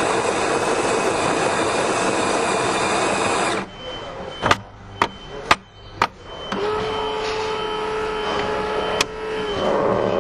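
Coffee machine working: a loud rushing noise that stops after about three and a half seconds, four sharp clicks, then a steady mechanical hum with one more click partway through.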